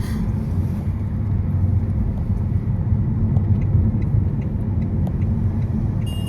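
Steady low rumble of a moving car, with road and engine noise filling the low end.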